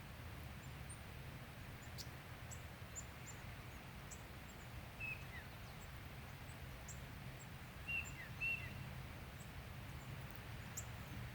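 Outdoor ambience of a steady low rumble with scattered small bird calls: many faint, very short high ticks, and a few short chirps, one about five seconds in and two close together near eight seconds.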